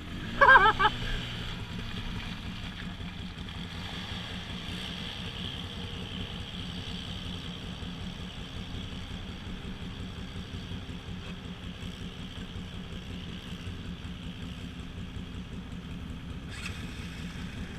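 ATV engine running steadily at low, even revs, with no revving. A brief hiss comes near the end.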